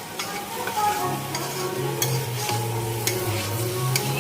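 Spoon stirring curry in a frying pan, with repeated scrapes and clicks against the pan over a light sizzle.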